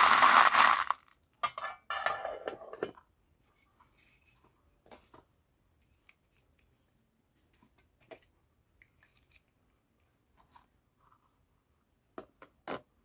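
Candy packaging being torn open and crinkled in loud rustling bursts during the first three seconds, followed by scattered faint clicks and taps and two sharper clicks near the end.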